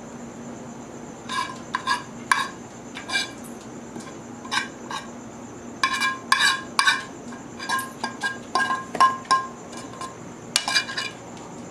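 A spoon clinking against a strainer and bowl as cream sauce is worked through the strainer: irregular clusters of sharp ringing clinks, starting about a second in and stopping shortly before the end.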